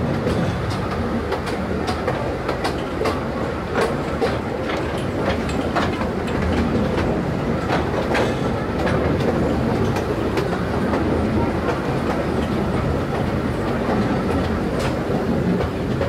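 Taipingshan Bong Bong narrow-gauge forest train running along its track, heard from on board: a steady low rumble of the running train with frequent irregular clicks and clacks of the wheels on the rails.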